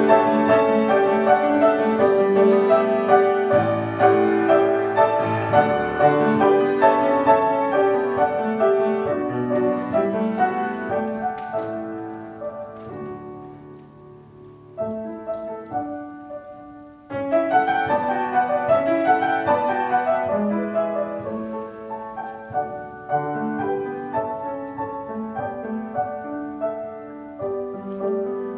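Piano music with many sustained chords and melody notes; the playing grows quiet about halfway through, then picks up fuller again a few seconds later.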